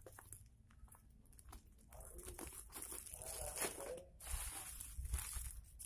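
Plastic packaging crinkling and rustling as it is handled, with irregular crackles, busier and louder in the second half.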